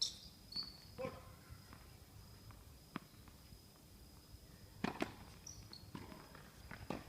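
Tennis ball knocks, off racket and court, at uneven intervals with a close double knock about five seconds in, and a couple of short high squeaks.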